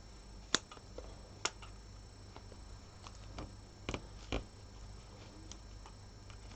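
Small scissors snipping through layers of painter's tape and cling film: a few short, sharp snips spaced irregularly, faint overall.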